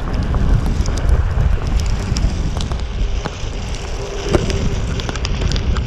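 Wind buffeting a moving action camera's microphone, a steady low rumble, with scattered faint ticks on top.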